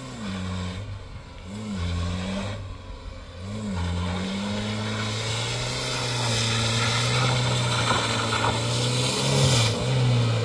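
A motor vehicle's engine revs briefly three times, its pitch rising and falling, then runs at a steady pitch and gets a little louder from about four seconds in.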